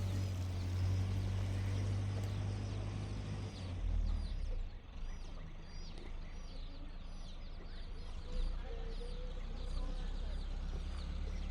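Birds chirping: many short, high, falling chirps in quick succession, starting a couple of seconds in, over a steady low hum.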